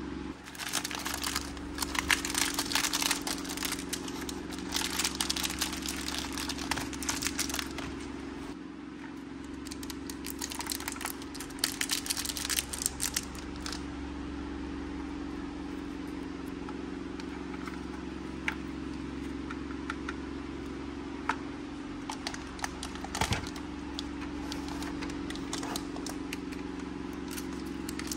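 Crinkly plastic wrappers being handled and crumpled, with small plastic clicks, dense crinkling for the first dozen seconds and then only scattered clicks over a steady low hum.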